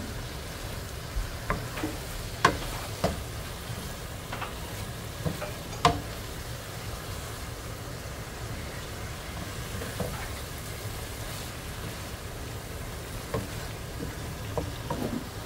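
Diced turnips frying in oil in a nonstick wok, stirred with a spatula: a steady sizzle with scattered knocks and scrapes of the spatula against the pan, the loudest about 2.5 and 6 seconds in. The water has cooked off and the masala is being browned (bhuna) in the oil.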